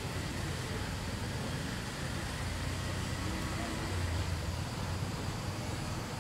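Steady low outdoor rumble under an even hiss, swelling slightly about four seconds in.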